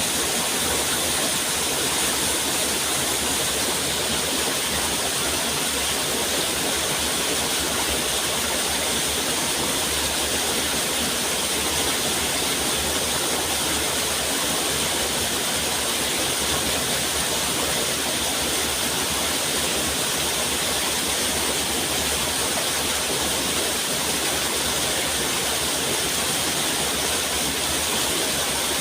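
Running water making a steady, even rush with no breaks or changes.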